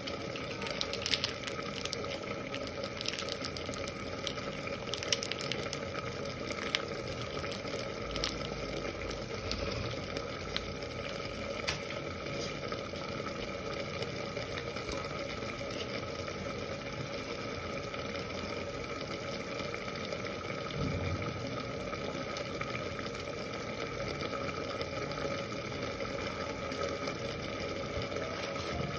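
Mutton, onions and spices sizzling and bubbling in their juices in an open aluminium pressure cooker. Scattered crackles are thicker in the first several seconds, over a steady hum.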